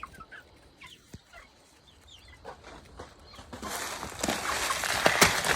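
Chickens clucking and chirping quietly, then about halfway through a loud rustling with sharp clicks builds up and runs to the end, as the flock scratches and pecks around the feed.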